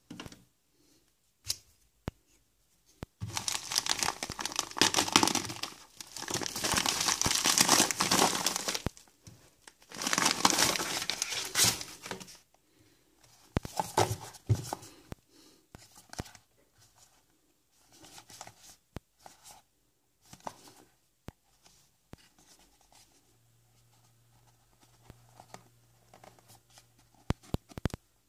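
A padded plastic mailer being torn open in several long rips, with crinkling of the plastic, over roughly the first half. After that come quieter rustles and light clicks of small packaging boxes being handled and turned over.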